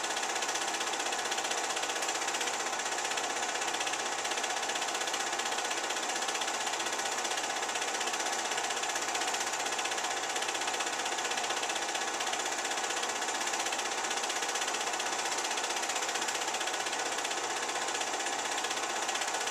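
Film projector running, a steady mechanical clatter and whirr from the film transport.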